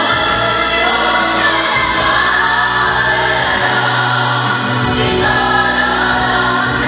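Gospel vocal group singing live in harmony, men's and women's voices together, over a low bass line that shifts note every two or three seconds.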